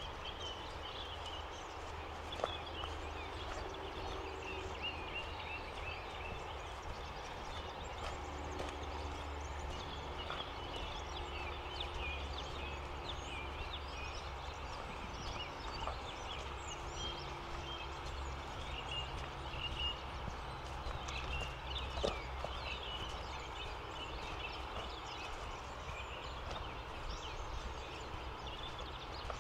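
Birds chirping and twittering in many short, busy calls over a steady low rumble, with a couple of sharp clicks.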